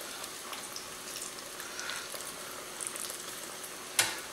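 Battered zucchini rounds deep-frying in canola oil at about 325 °F in a cast iron pot: a steady sizzle with fine crackling. A single sharp click near the end.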